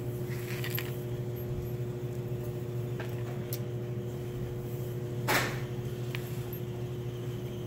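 Steady low background hum with a few faint light clicks, and a short swishing noise about five seconds in.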